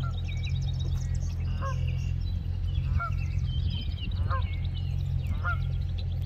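Geese honking, one honk about every second and a quarter, over higher chattering calls of smaller birds and a steady low hum.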